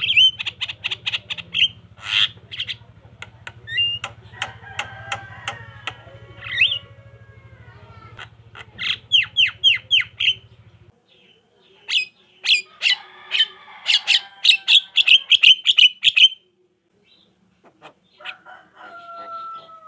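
Javan myna chattering song: rapid runs of sharp, repeated notes alternating with whistled gliding tones, in several bursts with a brief pause near the end. A low steady hum underlies the first half.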